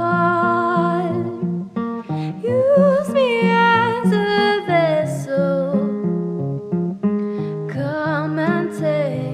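Acoustic guitar strumming chords under a singer holding long notes with vibrato.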